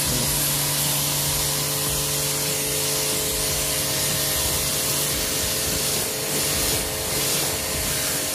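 Aimex D7 1800-watt electric pressure washer running with the trigger held: a steady hiss of the water jet hitting the motorcycle's engine and exhaust, over a steady hum.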